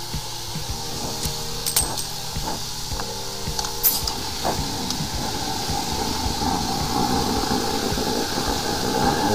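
High-pressure sewer jetter running steadily, with the hiss of its water jet and hose, and a few sharp metallic clinks about two and four seconds in. A higher tone from the machine grows stronger toward the end.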